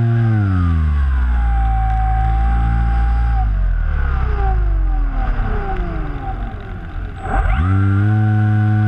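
RC flying wing's electric motor and propeller heard from the onboard camera: the whine drops in pitch as the throttle is eased back near the start, slides lower and quieter through the glide, then sweeps sharply back up about seven and a half seconds in as the throttle is opened again and settles into a steady run.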